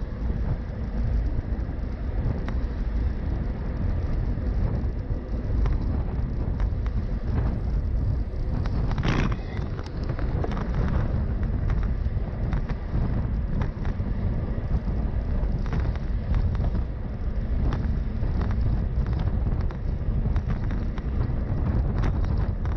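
Steady low rumble of wind buffeting the microphone with road or traffic noise, broken by scattered light clicks and a brief louder hiss about nine seconds in.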